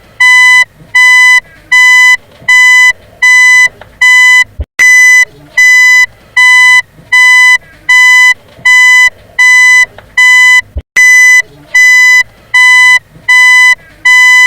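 Car reversing beeper sounding a steady, evenly spaced high-pitched beep, about one and a half beeps a second, with short gaps between beeps. A brief click falls in a gap twice.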